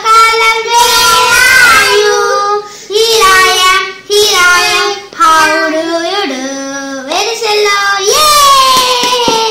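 A child singing in a high voice, with drawn-out notes and short pauses between phrases.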